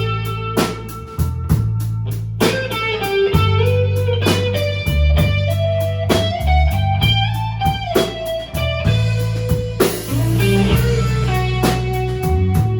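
Blues band playing an instrumental passage: an electric guitar plays held lead notes over bass and a steady drum kit beat, with a cymbal crash about ten seconds in.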